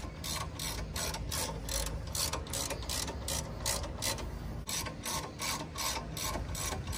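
Ratchet wrench clicking steadily, about three clicks a second, as it works the bolts of a car's front suspension.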